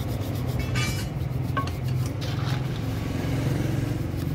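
Light metallic clinks and scrapes of steel truck gearbox parts being handled and brush-cleaned in a metal basin, a few times, over a steady low engine hum.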